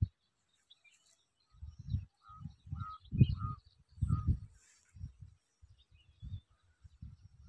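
A bird calls four short repeated notes, with faint high chirps around them, over uneven low rumbles of wind buffeting the microphone. The rumbles are loudest a little after the middle.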